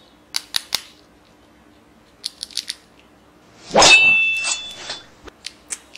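Plastic toy knife being handled, with small sharp clicks and taps in groups of three and four. Just under four seconds in, the knife is swung, making a loud swish of about a second with a ringing, blade-like tone. A few more clicks follow.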